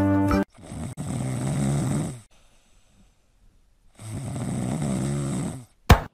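Two long, slow snores with a rasping rumble and a pause between them, then a short sharp knock near the end.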